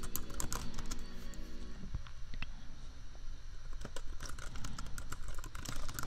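Fast, irregular typing on a computer keyboard, keys clicking in quick runs, over soft lofi background music whose held chord drops out about two seconds in.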